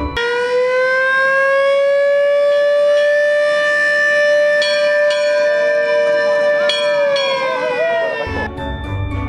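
Mechanical siren of an antique fire truck winding up quickly, holding one steady wail for about seven seconds, then winding down and stopping.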